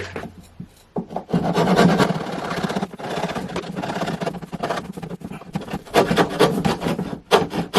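A saw cutting through the wooden end piece of a snow scraper, starting about a second in and going on in quick repeated strokes.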